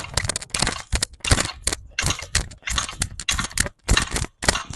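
Weighted metal training bar ringing and clinking with each quick push-out: a rapid run of sharp metallic clicks, about four or five a second.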